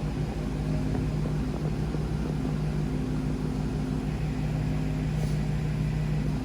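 Car engine running steadily as the car is driven, a low even rumble with a steady hum.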